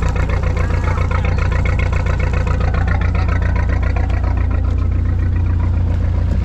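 Fishing boat's engine running steadily, a loud, even low hum with a fast regular firing beat and no change in speed.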